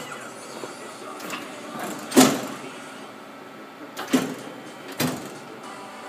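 Amada RG-100 hydraulic CNC press brake running with a steady hum, broken by sharp clunks: the loudest about two seconds in, and two more near four and five seconds.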